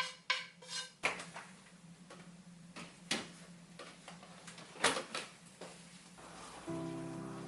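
A utensil stirring or scraping in a bowl in quick regular strokes, which stop about a second in. Light kitchenware clatter and handling follow, with a couple of sharper knocks. Soft music comes in near the end.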